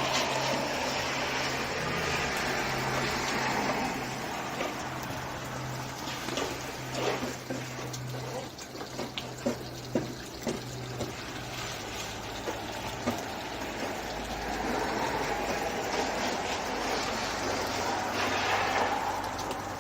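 Distant, high-flying Pilatus PC-12/45 single-engine turboprop with a four-bladed propeller, heard as a steady rushing roar that swells and fades twice, over a low hum. A few sharp clicks come near the middle.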